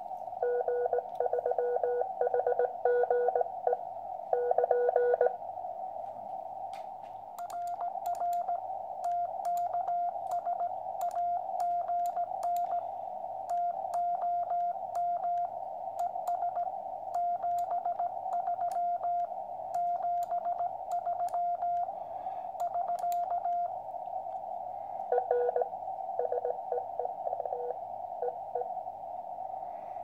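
Morse code from a QCX 80 m CW transceiver over steady receiver hiss. For about the first five seconds the other station's signal is heard as a lower-pitched keyed tone. From about seven seconds in, the operator's own higher-pitched sidetone keys out a sign-off for about sixteen seconds, with faint clicks from the brass paddle. Near the end comes a short burst of the lower-pitched received signal.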